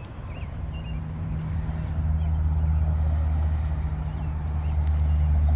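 Low, steady hum and rumble of vehicle traffic on the bridge overhead, growing louder about two seconds in.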